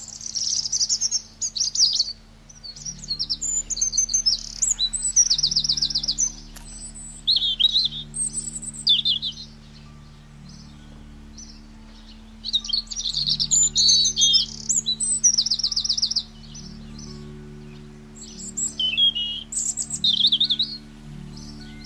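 A small songbird singing in repeated bouts of high chirps and fast trills, each bout lasting a few seconds, with pauses of one to two seconds between bouts.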